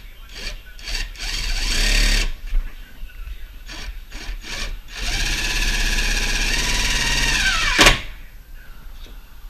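Power drill boring a hole. A short run about a second in is followed, after a few knocks, by a longer steady run from about five seconds in that winds down in pitch just before eight seconds as the bit goes through.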